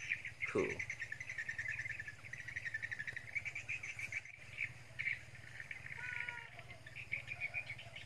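Birds calling at dawn over a steady, rapid high chirring, with a few short whistled calls, two of them close together about six seconds in.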